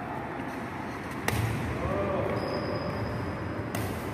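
Badminton racket striking a shuttlecock: a sharp crack about a second in and another near the end, in a reverberant hall.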